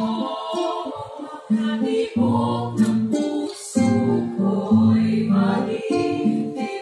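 Women's vocal ensemble singing, accompanied by a plucked acoustic guitar.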